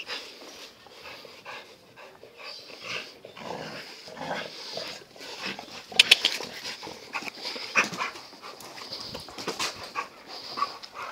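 Young American Staffordshire terrier panting with its tongue out while playing, with scuffling and a few sharp clicks about six and eight seconds in.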